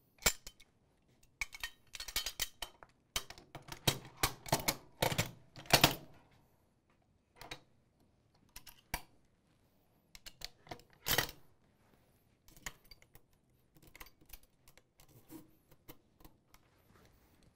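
Steel parts of an M2 .50-cal heavy machine gun clicking and clacking as the gun is reassembled. The clicks come in quick clusters through the first six seconds, then thin out, with one louder clack about eleven seconds in.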